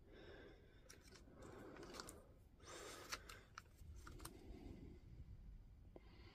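Near silence, with a few faint clicks and light scrapes of multimeter test probes being touched onto the ends of 18650 cells in a battery pack.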